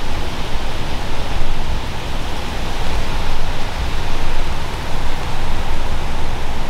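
Wind buffeting the microphone: a loud, steady rushing hiss over a fluctuating low rumble.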